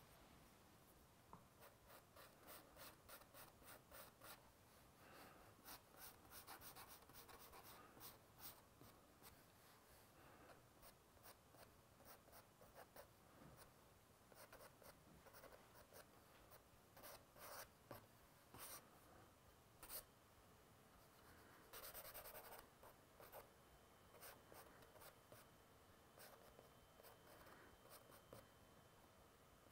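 Faint scratching of a white pencil on tan toned sketchbook paper: many quick, short hatching strokes, with one longer scrubbing stroke about two-thirds of the way through.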